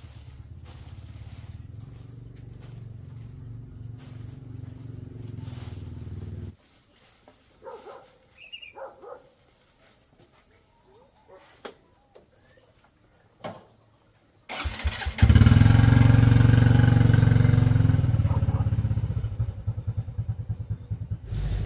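A small engine runs steadily and cuts off suddenly about six seconds in, leaving a quiet stretch with a few small clicks and a brief high chirp. About fourteen seconds in an engine starts abruptly and runs loudly, easing off slowly toward the end.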